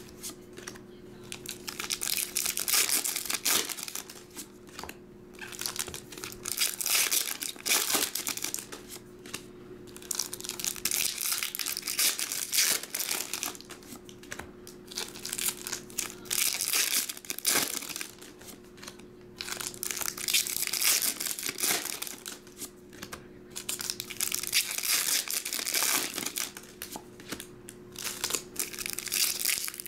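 Pokémon trading cards and foil booster-pack wrappers being handled, rustling and crinkling in repeated short bursts over a steady low hum.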